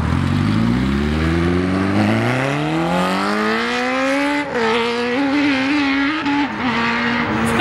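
Sport motorcycle's engine accelerating hard away, its pitch climbing steadily for about four seconds, then dropping sharply at an upshift about halfway through and pulling on with another brief dip near the end.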